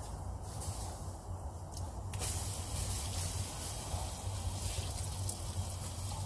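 Water ladled onto a hot tent stove flashing to steam: a sharp hiss starting about two seconds in and dying away over a couple of seconds.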